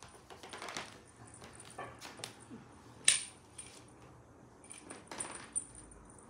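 Cat feather-wand toy's metal clip clinking sharply on wooden floorboards about three seconds in, amid soft rustles and scrapes as the feather lure is dragged across the floor.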